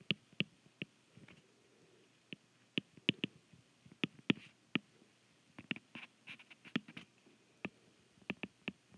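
Stylus tip tapping and clicking against a tablet screen while handwriting, a string of irregular sharp ticks.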